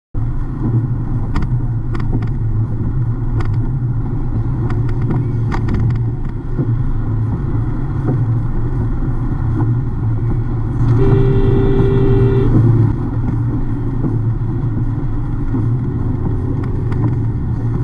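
Steady engine and wet-road tyre noise heard inside a car driving in the rain, with a few sharp clicks in the first six seconds. About 11 seconds in, the car's horn sounds once for about a second and a half at the van cutting across the lane.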